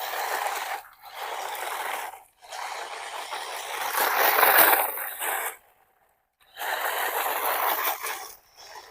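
Gantry Pro RC off-road truck driving over rough dirt ground in four bursts of scraping and rattling, each one to three seconds long with short pauses between. The loudest burst comes around the middle.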